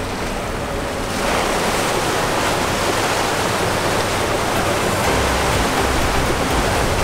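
Water rushing and churning along a moving riverboat's hull, a steady hiss of wake that gets louder about a second in.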